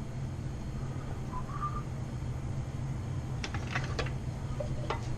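A nearly empty metal stain can and brush clicking and tapping lightly, several quick clicks about three and a half seconds in and one more near the end, over a steady low hum.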